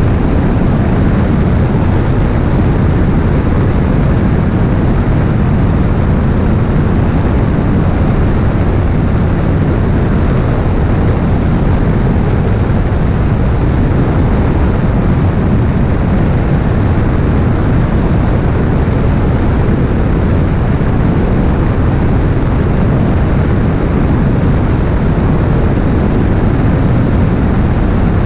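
Beechcraft Bonanza S35's engine and propeller running steadily in flight, mixed with heavy slipstream rush on a microphone mounted under the wing.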